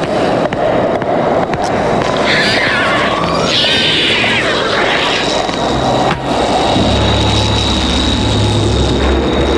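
Cartoon sound effects: a steady rushing rumble throughout. A unicorn whinny comes about two to four seconds in, followed by a sustained high tone, and a low steady hum sets in near the end.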